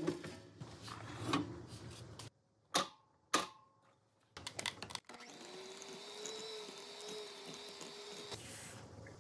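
Clatter and two sharp metallic clinks as a muffin tin is handled and set down. Then, about five seconds in, an electric hand mixer starts a steady whine, turning rougher near the end as its beaters work through butter. The audio is sped up to double speed.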